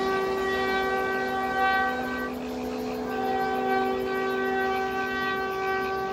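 Train horn sounding a long, steady blast of several tones at once; the higher tones break off for about a second a little over two seconds in, then the horn sounds again.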